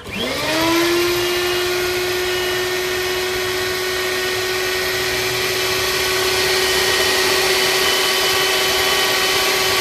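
Electric belt sander switched on: its motor whine rises in pitch for under a second, then runs steadily with the hiss of the belt.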